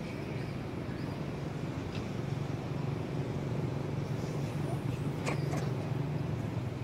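A steady low motor hum, with a few faint clicks about two seconds and five seconds in.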